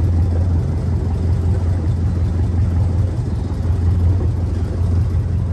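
A boat's engine running steadily at low cruising speed: a constant low hum.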